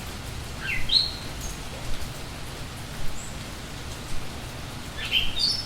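Steady rain with birds chirping: a quick rising chirp about a second in, a short high note around three seconds, and a flurry of chirps near the end.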